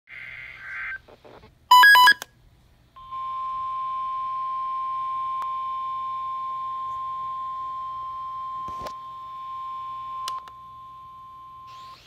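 NOAA weather alert radio receiving a warning: a short warbling data burst, then a few sharp, loud electronic beeps about two seconds in, then the steady single-pitch alert tone (the 1050 Hz weather-radio warning tone) held for about nine seconds, with a few clicks along the way.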